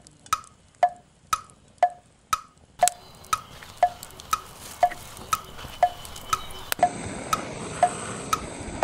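Wood-block tick-tock added in editing, about two clicks a second alternating between a higher and a lower pitch, like a ticking clock marking time while the food cooks. Underneath, an outdoor hiss grows louder about seven seconds in, with the blowtorch on a gas canister going.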